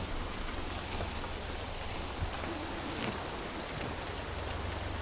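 Steady low rumble and hiss of a vehicle moving along a rain-soaked road, heard from inside the vehicle.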